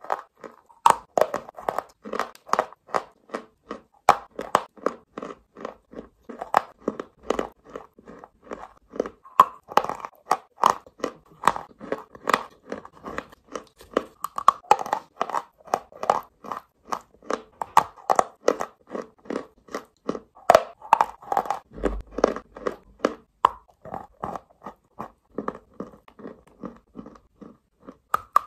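A person chewing chunks of chalk with the mouth close to the microphone: a steady, rapid run of dry crunches that goes on without a break.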